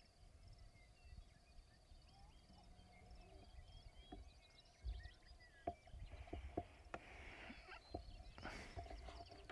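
Near silence outdoors: a faint low wind rumble, a steady high trill and scattered faint chirps. Several sharp clicks and bursts of rustling come in the second half.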